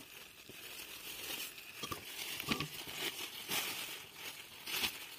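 Thin plastic bags crinkling and rustling irregularly as they are handled and pulled open over filled bags.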